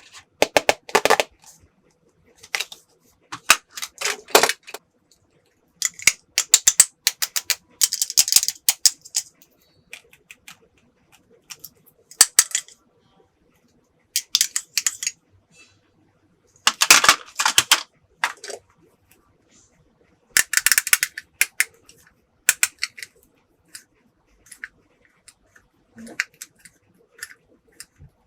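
Small hard plastic toy pieces being handled and set down, in irregular bursts of clicking and clattering with pauses between them.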